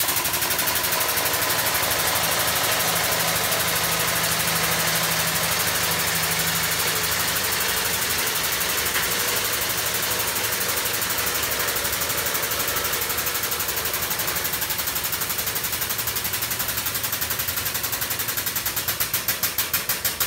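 Air-over-hydraulic pump of a Kendon motorcycle lift, driven by compressed air, running steadily as it raises the empty lift: a loud rush of air with a fast chatter of pump strokes that becomes more distinct near the end.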